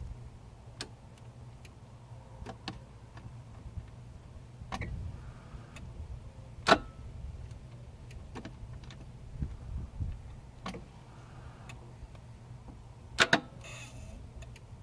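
Relay in a BMW E21 320i clicking at irregular intervals over a faint steady low hum, the loudest click about halfway through and a quick double click near the end. These are the odd relay noises that follow turning the key off on a car whose starter only bumps once and won't crank.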